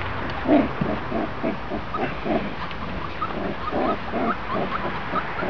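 Puppies making a quick run of short grunts with a few high squeaks.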